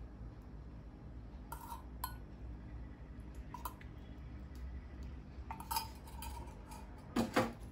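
A steel ladle clinks lightly against a small steel pot and the rim of a pressure cooker as ghee is ladled into the cooker: a few scattered taps over a faint low hum.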